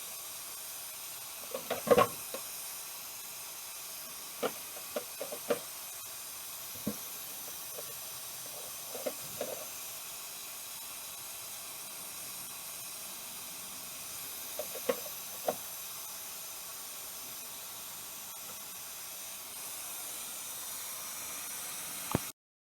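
Steady hiss with a few scattered light clicks and knocks, the loudest about two seconds in; the sound cuts off suddenly near the end.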